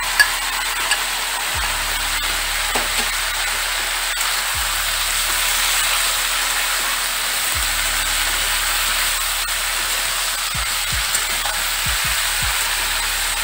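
Long beans and potatoes sizzling in oil in a metal wok while a metal spatula stirs them, with a few sharp clicks of the spatula against the pan.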